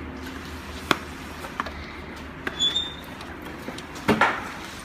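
Clicks and knocks of hands handling printer parts during disassembly: a sharp click about a second in, a brief squeak around the middle, and a cluster of louder knocks near the end, over a steady low hum.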